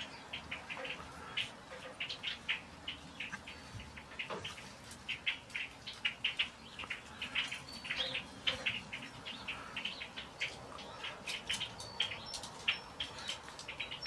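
A flock of red-winged blackbirds calling, with many short, sharp chip notes overlapping several times a second.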